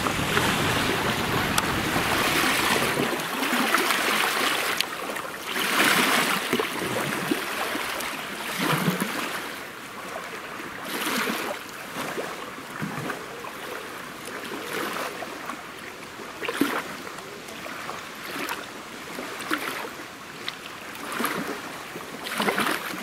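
Water lapping and splashing against the hull of a small boat in irregular swells, with wind buffeting the microphone, heaviest in the first few seconds.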